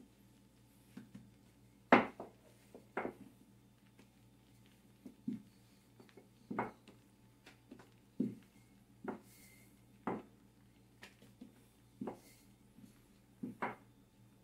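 Wooden rolling pin working flour tortilla dough on a countertop: a string of short knocks, roughly one a second and irregular, the loudest about two seconds in, as the pin is set down and pushed across the dough. A faint steady hum runs underneath.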